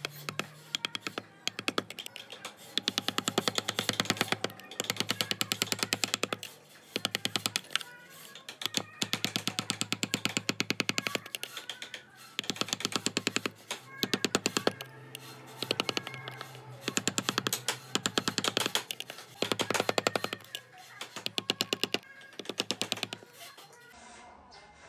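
Wood-carving tool striking wood in rapid runs of tapping, each run lasting a second or two with short pauses between. Background music underneath.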